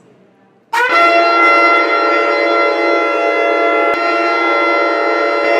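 Shofar blown in one long blast. It starts under a second in with a short upward slide, then holds a loud, steady, brassy note.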